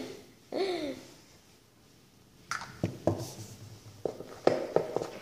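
A brief voice sound about half a second in, then quiet, then a run of light, irregular taps and knocks from about two and a half seconds on.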